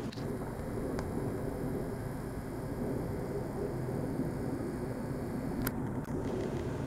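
Steady low outdoor background rumble picked up by a compact camera's built-in microphone, with a couple of faint clicks.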